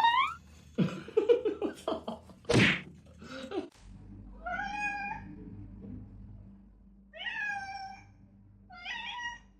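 A cat meowing three times in the second half, each a short pitched call. In the first half there are several knocks and one loud burst of noise.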